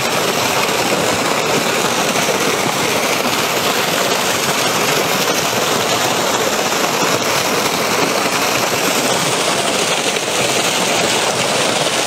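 Water rushing steadily, a loud even hiss with no pitch, as in the flow through a draining pond's outlet.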